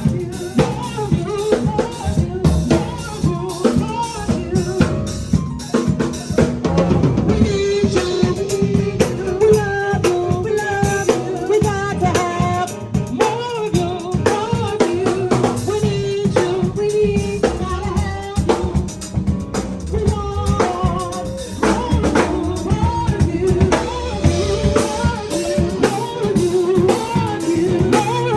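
Live band of drum kit, bass, lead guitar and keys playing a gospel song, the drum kit loud and busy with snare rimshots and kick under a melodic lead line.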